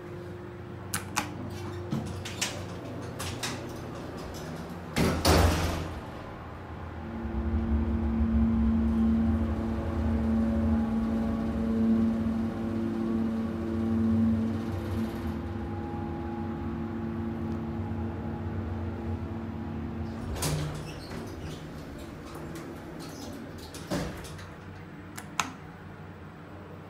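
Westinghouse hydraulic elevator: the doors slide shut with a loud rumble about five seconds in. Then the car travels with a steady hum and low drone for about thirteen seconds, stops with a thump, and a few clicks follow.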